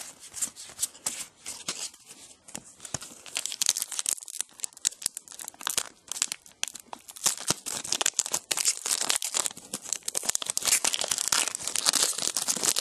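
Wrapper of a 2011 Select AFL Champions trading card pack being torn open and crinkled by hand: a dense run of crackling and tearing that gets busier and louder about three and a half seconds in.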